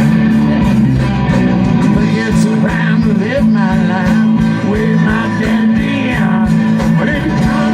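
Live country-rock band playing an instrumental passage: guitar over a steady bass line and drum beat.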